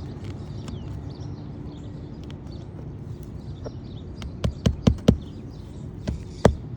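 Steady low background rumble. From about four seconds in comes a run of sharp hammer blows, about five strikes in two quick bunches, as roofing nails are driven into asphalt shingles.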